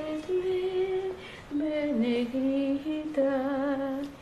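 A woman humming a slow lullaby to a baby, without words: a string of long held notes stepping downward, the last one wavering with vibrato.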